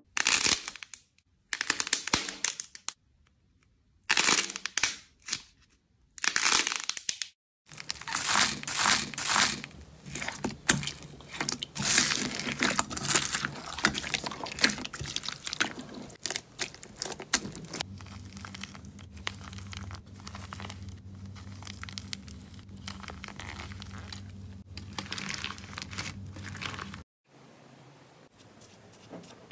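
Slime squeezed and kneaded by hand, crackling and crinkling: short separate bursts at first, then a dense run of crackle, then a softer crackle over a steady low hum in the later part.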